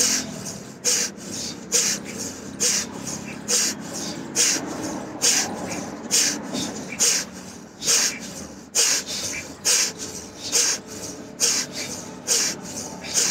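Forceful, rhythmic breaths through the nose in bellows-style yoga breathing (bhastrika pranayama), a sharp hissing snort about once a second, each breath paced by the arms pumping up and down.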